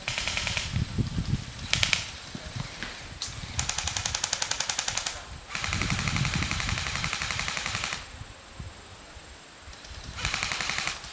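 Airsoft guns firing several full-auto bursts of rapid clicking shots, the longest in the middle lasting about two seconds.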